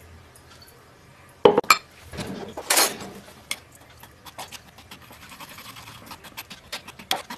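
Steel spoon clinking and scraping in a stainless-steel strainer set on a glass jar, pressing beetroot and carrot pulp through to strain the juice. A loud metal clank comes about a second and a half in, followed by a short scraping rush, then a run of small quick taps and scrapes.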